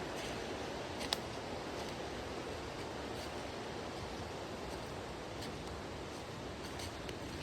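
Steady rushing of flowing creek water, with a single sharp click about a second in.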